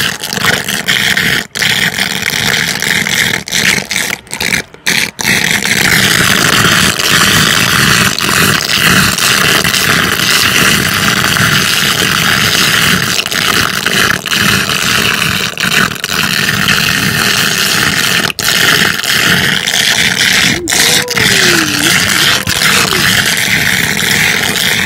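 Standing rainwater draining down a floor drain in a concrete yard, a loud, steady gurgling and sucking rush close to the microphone.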